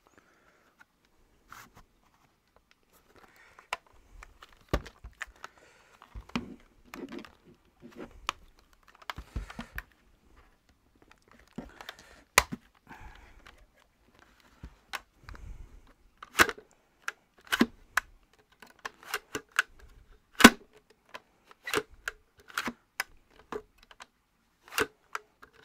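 Hard plastic clicks and knocks of a Dyson V10 Animal cordless vacuum being handled with the motor off, its parts worked and clicked together while a part that has been sticking is checked. Scattered clicks and soft knocks come first, then a quicker run of sharp clicks in the second half.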